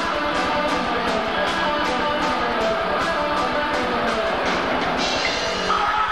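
Live rock band playing: electric guitars over drums, with regular cymbal hits about three a second that stop about a second before the end.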